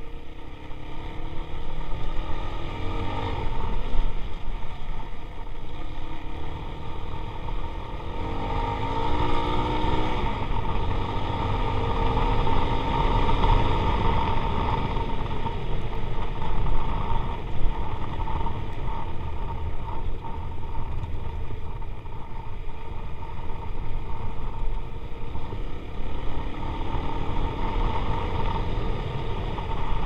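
Motorcycle engine running while the bike is ridden along a dirt road, its pitch rising and falling a few times with the throttle: around three seconds in, from about eight to ten seconds, and again near the end.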